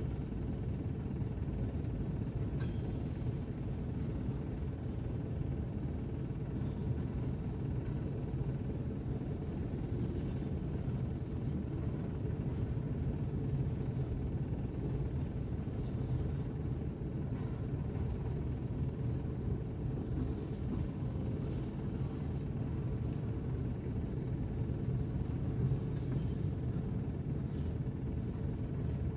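Freight train of tank cars rolling through a level crossing: a steady low rumble of wheels on rails.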